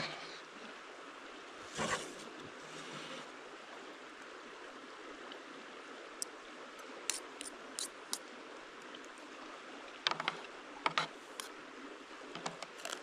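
Spoons and forks clicking and scraping against plates as people eat, with a run of light clinks in the middle and a denser cluster near the end, over a steady background rush.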